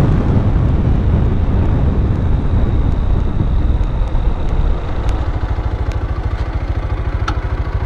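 Motorcycle slowing under braking: wind and road noise fade over the first half, leaving the engine's even low pulsing as the bike rolls slowly toward the road edge.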